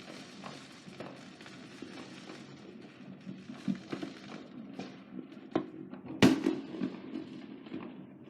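Neighbourhood fireworks and firecrackers going off, with scattered pops over a steady distant rumble and one much louder sharp bang about six seconds in.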